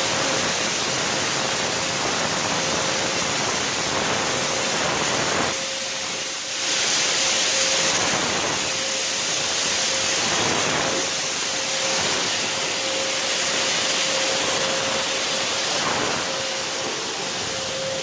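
Electric disinfectant fogger running steadily, its blower hissing as it sprays a mist, with a faint steady motor whine underneath. The hiss drops for about a second roughly six seconds in, then comes back.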